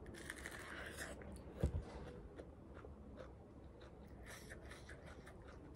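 Crisp crunching as kernels of supersweet corn on the cob are bitten off and chewed, coming in short crackly bursts. There is a single dull knock about a second and a half in.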